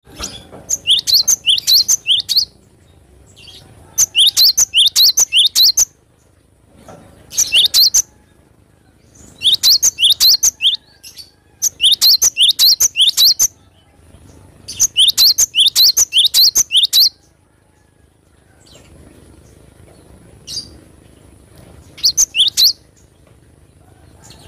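Cinereous tit (gelatik batu) singing in bouts of rapid, sharp, repeated high notes, about seven phrases of one to two seconds each with short pauses between them.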